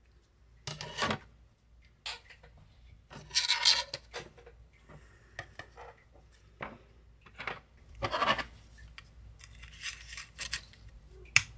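3D-printed plastic ruler parts being handled and fitted together on a workbench: a string of about ten short plastic scrapes, rubs and clicks, the loudest a little over three seconds in and about eight seconds in, with a sharp click near the end.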